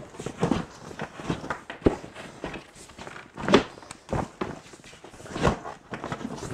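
Irregular knocks and thuds of an inflatable boat's floor sections being pushed into place and butted together, with the boat's fabric rustling between them. The loudest knocks come about half a second, two, three and a half, and five and a half seconds in.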